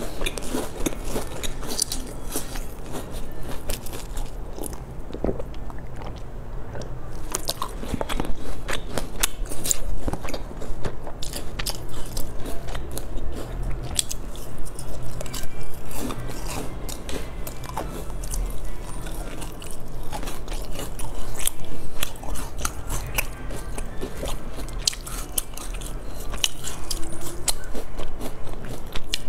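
Close-miked crunching bites and chewing of crisp round pastries rimmed with sesame seeds, a dense run of small sharp crackles with louder bites every few seconds.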